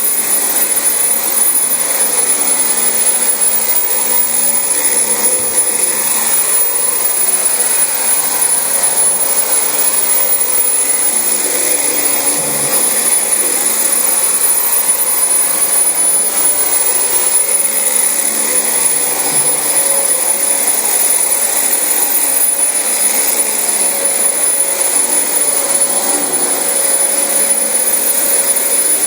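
Dyson DC25 bagless upright vacuum cleaner running steadily as it is pushed over thick carpet, its motor noise carrying a steady high whine.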